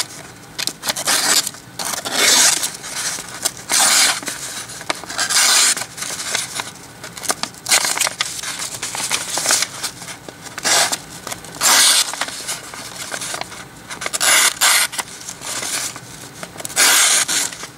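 Freshly sharpened knife slicing into a sheet of paper held in the hand, a paper-cutting test of the new edge. It gives a run of short hissing cuts about every one to two seconds, with paper crinkling and rustling between them.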